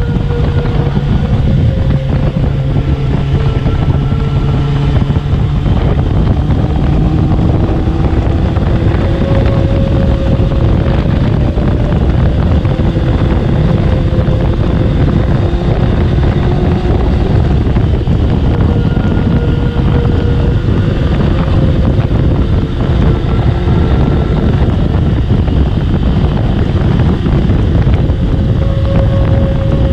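Honda CBR650R's inline-four engine with an aftermarket JP exhaust running steadily under way, its pitch drifting only slowly, with heavy wind noise on the microphone.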